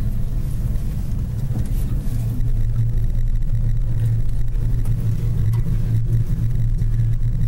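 Gondola cabin rumbling steadily as it travels along its cable, a constant low hum with no pauses.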